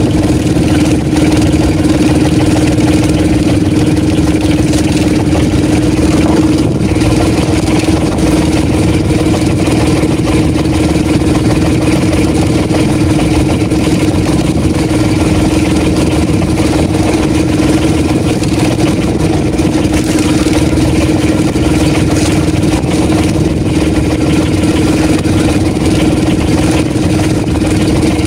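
Outrigger fishing boat's engine running steadily at a constant pitch, a loud unbroken drone.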